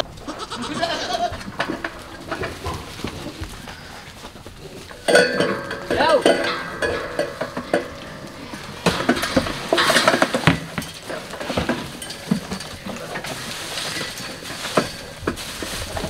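Nigerian Dwarf goats bleating as they wait for hay, with a run of clattering knocks from about five seconds in.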